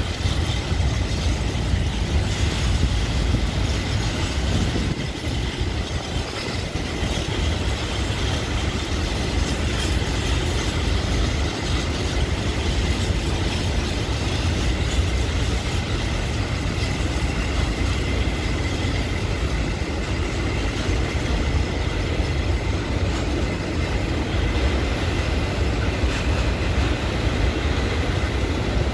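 A long freight train's wagons rolling past at a steady speed: a continuous low rumble of wheels on rail, with a faint steady high tone above it.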